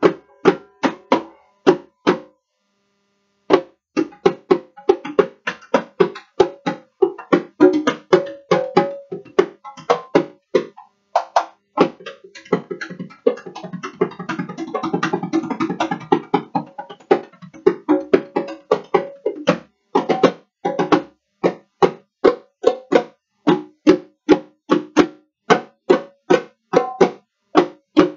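Hand drums played with bare hands, a conga and a pair of smaller drums beside it, struck in a quick, steady rhythm. The playing stops briefly about two seconds in, and a dense roll of fast strokes swells in the middle.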